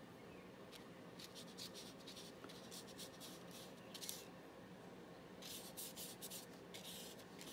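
Paintbrush strokes on paper: faint scratchy swishes in short clusters as paint is brushed on, over a faint steady hum.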